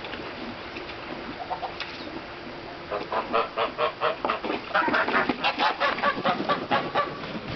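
Domestic geese honking in a fast, loud run of calls, several a second, starting about three seconds in and lasting about four seconds.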